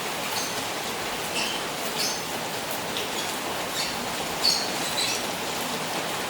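Rain falling steadily on a koi pond, a constant hiss of water, with short high-pitched ticks of single drops standing out every second or so.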